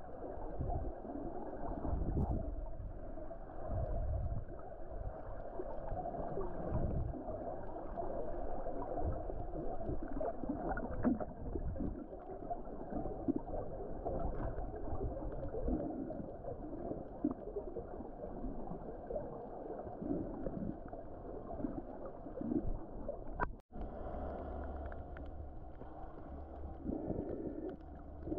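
Muffled underwater noise heard through a camera's waterproof housing: water sloshing and gurgling with irregular low rumbles and surges. It drops out for an instant about 23 seconds in, and a steadier low hum comes in after it.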